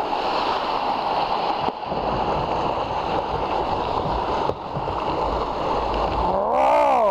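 Fast water rushing and churning around a canoe running down a small white-water drop in a river, a steady hiss with a low rumble joining about two seconds in. Near the end a person lets out a drawn-out whoop that rises and falls in pitch.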